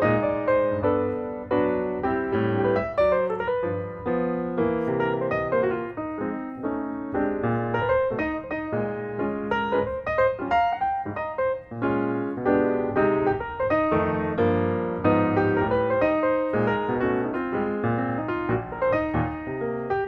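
Background piano music: a continuous flowing run of notes and chords.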